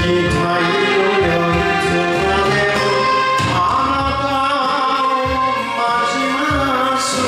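Enka song playing: a sung melody over a backing band with a steady low beat and held instrumental notes.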